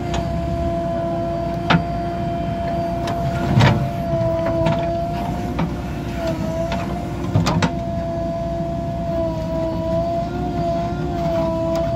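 JCB 3DX backhoe loader working, its diesel engine running under a steady high whine while the backhoe arm digs into the soil heap. Several sharp clanks sound as the bucket and boom linkage move, the loudest about three and a half seconds in.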